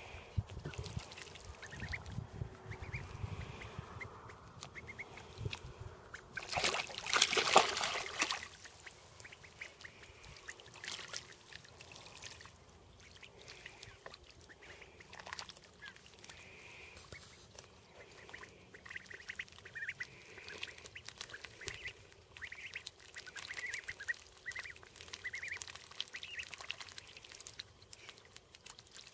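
Young ducks splashing in shallow water, with one loud burst of splashing about seven seconds in. Short high peeping calls from the ducklings come and go, most often in the second half.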